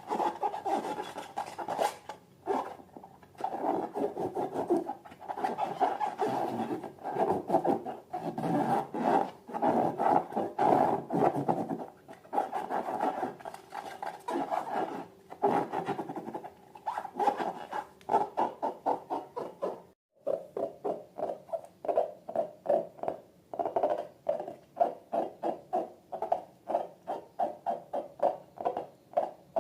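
Rubber balloons being rubbed and squeezed by hand, squeaking in quick repeated strokes. The strokes turn into an even rhythm of about two to three squeaks a second after a short break about two-thirds of the way through.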